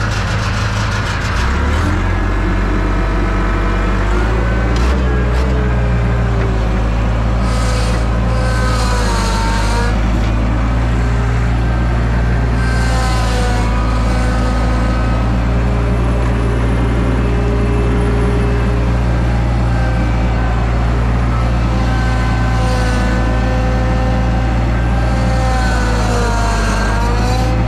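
Gehl 6625 skid steer engine running steadily, with a whine that rises and falls in pitch over it and a few short hissing bursts. The owner suspects the whine comes from the hydraulic pump.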